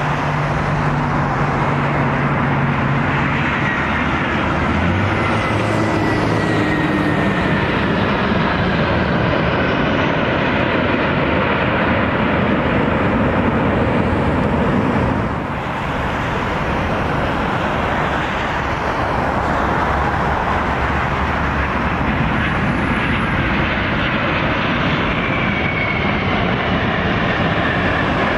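Jet airliner engines on the runway, first an Airbus A320 on its landing roll and, after a cut about halfway through, a Boeing 737. The engines make a loud, steady roar with a high whine that slides slowly down in pitch.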